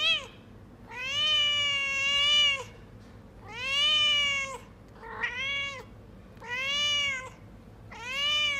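Domestic cat meowing over and over: about six long, drawn-out meows, most lasting a second or more, with short gaps between them.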